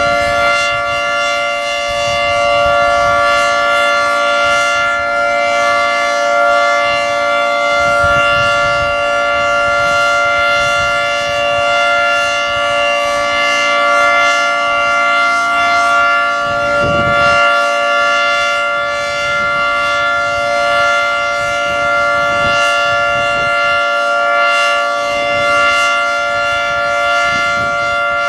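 Federal Signal 3T22 three-tone outdoor warning siren sounding a steady chord at a constant pitch during a test.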